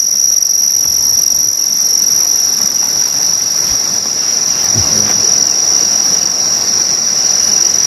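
Steady, high-pitched insect chorus, one unbroken shrill tone.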